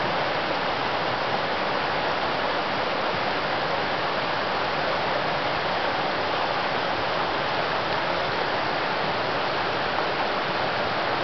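Shallow mountain stream rushing over rocks and small rapids: a steady, even rush of water that holds unchanged throughout.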